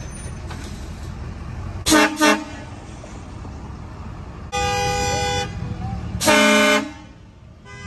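Train horns on a lifted Ford F-450 pickup sounding over the low rumble of the truck's engine. There are two quick toots about two seconds in, then two longer blasts of a several-note chord, the first about a second long and the second a little shorter.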